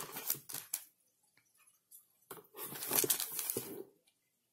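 Plastic wrapping crinkling as a plastic-wrapped packet of cotton pads is handled and lifted out of a box lined with bubble wrap. It comes in two bouts, the second, about two seconds in, the louder.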